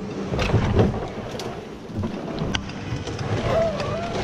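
Inflatable kayak's hull dragging over grass and brush, a steady scraping rumble with a few sharp knocks, picked up through a camera mounted on the boat.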